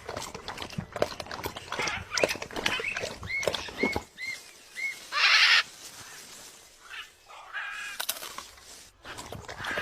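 A bird giving four short calls about half a second apart, among scattered clicks and knocks. A short loud noisy burst follows about five seconds in.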